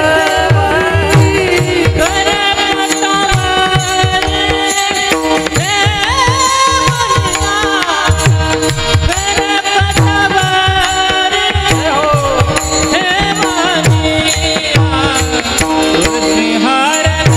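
Marathi kirtan devotional singing: a male voice sings a panchapadi melody over a steady drone, with regular hand-drum strokes and a continuous shimmer of small cymbals.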